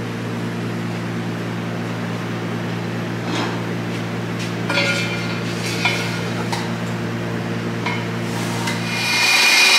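Metal parts clinking and tapping a few times over a steady machine hum. Near the end the hum gives way to a louder, steady hiss with a high whine.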